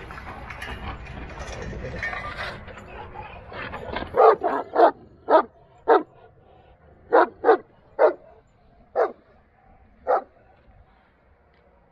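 Young Karadeniz (Black Sea) mountain dog barking: about ten short single barks in uneven groups, beginning about four seconds in. Before them, rustling noise with wind on the microphone.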